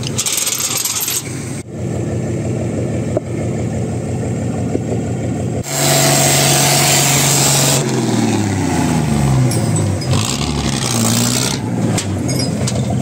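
Heavy 6x6 truck engine running steadily. About six seconds in it suddenly gets much louder with a rushing noise, and over the following seconds its pitch rises and falls as the engine is revved.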